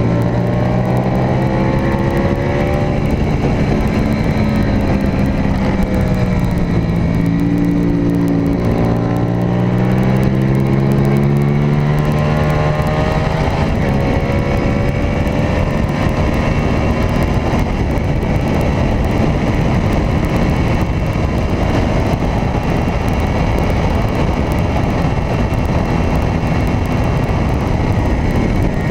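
Onboard sound of a Suzuki SV race motorcycle's V-twin engine at racing speed, heard under a steady rush of wind: the engine note falls over the first few seconds, then climbs hard with a gear change about twelve seconds in and pulls on at high revs.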